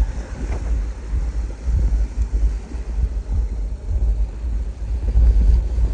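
Wind buffeting the microphone in a loud, gusting rumble, over the steady hiss of ocean surf.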